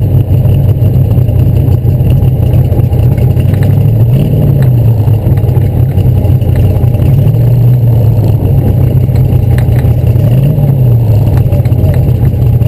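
Ford flathead V8 of a 1952 Streets Manning Special race car, heard from its open cockpit, running steadily at low road speed. The revs rise and fall briefly twice, about four seconds and ten seconds in.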